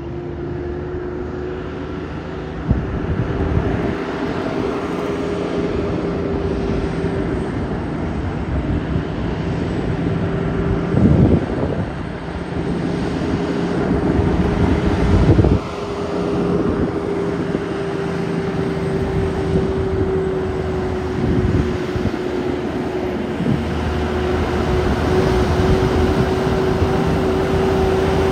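Loaded heavy truck's diesel engine running steadily on a downhill grade, with a continuous high whine over the engine note. There are two short louder surges of noise, about eleven seconds in and again about four seconds later.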